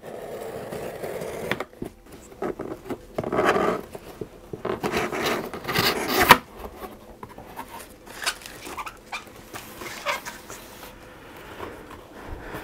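Packing tape being peeled and ripped off a cardboard box, with cardboard scraping and handling. The loudest tearing comes about six seconds in and stops sharply, followed by lighter rustling and clicks as the box is opened.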